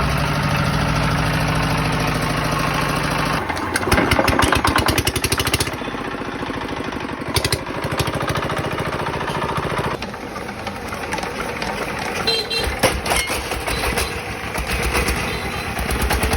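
Small old Chinese diesel engine running with a steady note, then about three seconds in changing to a rapid, loud knocking clatter that settles into a quieter, uneven running.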